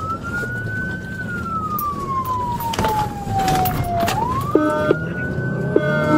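Patrol car's electronic siren wailing in pursuit, heard from inside the cruiser's cabin: a slow rise, a long fall, then a rise again about four seconds in. Over it comes a steady road and engine rumble. About four and a half seconds in, a second siren tone joins, stepping back and forth between a low and a higher pitch.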